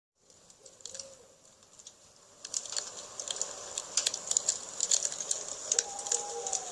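Campfire crackling with irregular sharp pops, fading in and growing louder about two and a half seconds in. A faint low bird call sounds twice, near the start and near the end.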